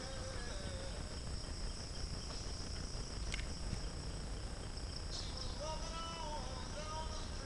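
Steady high-pitched insect chorus droning without a break, with a low rumble of wind or handling noise beneath. Faint wavering tones come in briefly at the start and again about five and a half seconds in.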